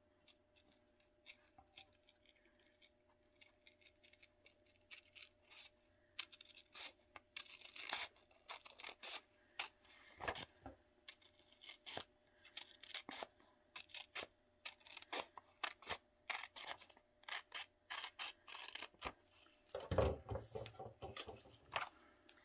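Scissors snipping through a sheet of paper folded into a triangle. The cuts come in a quiet, irregular run of short snips. Near the end there is a louder rustle as the paper is handled.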